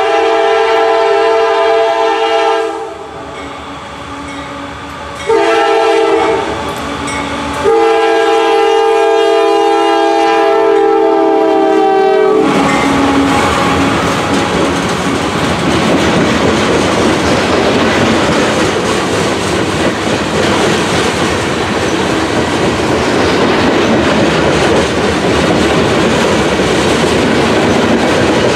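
A CSX GE AC44CW diesel locomotive's multi-note air horn sounds for a grade crossing in three long blasts, the last ending about 12 seconds in. The locomotive and a string of covered hopper cars then pass close by, a loud steady rumble of wheels on rail with clickety-clack over the joints.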